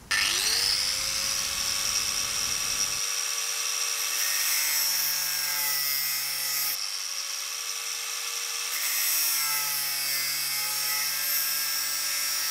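Makita angle grinder spinning up and cutting through the metal wedge cone of a Sta-Lok rigging terminal held in a vise. The whine rises in pitch over the first half second, then holds steady, dipping a little in pitch as the disc bites into the metal.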